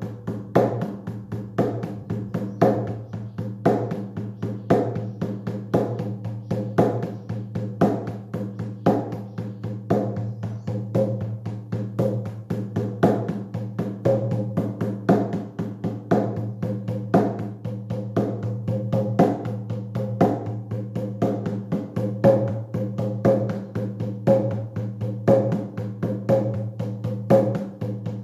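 Steady, fast shamanic journey drumming on a single drum, several strokes a second with a louder stroke about once a second, over a steady low hum.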